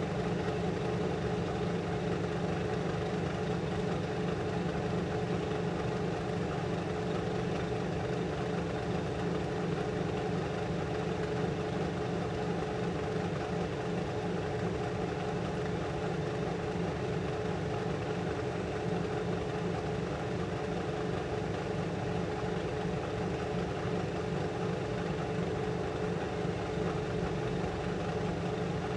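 Steady hum of a clean-room air unit's fan, with a low tone and a higher tone that hold level throughout.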